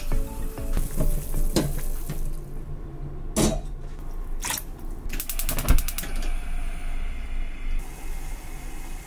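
Stainless pot of water on a gas stove: a few separate knocks of the pot, a quick run of rapid clicks about five seconds in, then steady bubbling of water at the boil.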